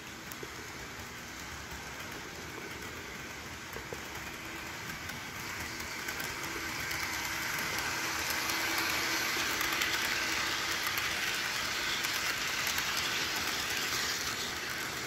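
Model train running on its track: the locomotive's small electric motor and the wheels on the rails make a steady hissing rumble that grows louder over the first half as the train approaches, then holds steady as it passes.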